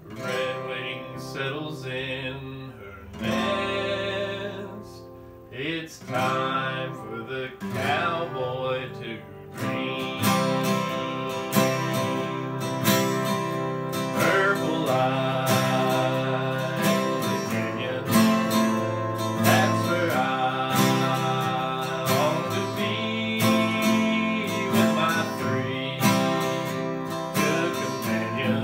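Two acoustic guitars strummed together, with a woman singing a song over them. The playing is patchy at first and turns fuller and steadier about ten seconds in.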